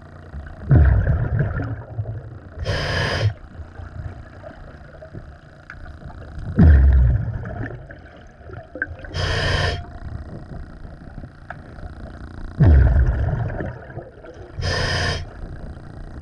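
Diver breathing through a diving regulator underwater: three breath cycles, each a drawn inhale followed about two seconds later by a short burst of exhaled bubbles.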